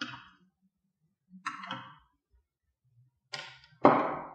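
Handling noises on a desk: a light knock as a plastic device is shifted about a second and a half in, then two sharper knocks near the end as hand tools are picked up, the last the loudest.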